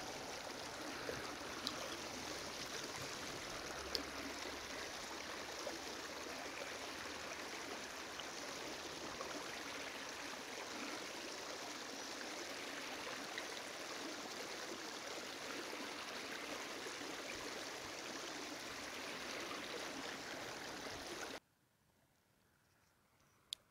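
Shallow river running over rocks in small rapids: a steady rushing of water with a few faint clicks. It cuts off suddenly near the end, leaving near silence and one sharp click.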